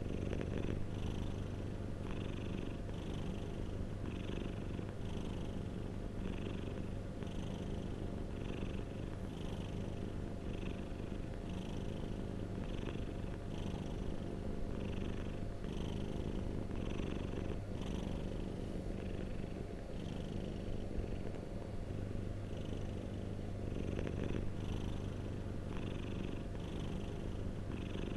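Domestic cat purring close up, steady and unbroken, swelling and easing in an even rhythm with its breaths a little under a second apart.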